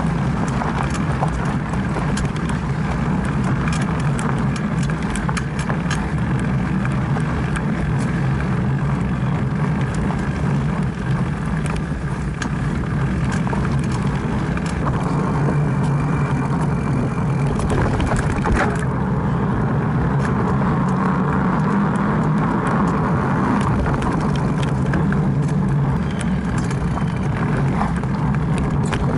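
Mountain bike riding fast over a dirt singletrack: a steady rumble of tyres on the trail and wind on the microphone, with frequent small clicks and rattles from the bike over bumps.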